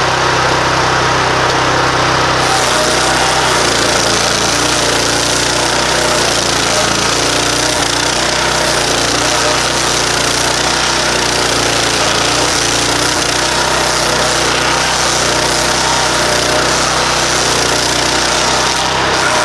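Stump grinder's 15-horsepower Loncin engine running under load while its nine-tooth cutting wheel grinds into a wooden stump. The cutting noise turns harsher about two seconds in.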